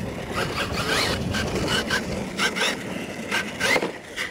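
Losi LMT radio-controlled monster truck's electric motor whining up in short rising bursts as the throttle is blipped. Its tyres scrabble on loose dirt, with a few sharp clicks.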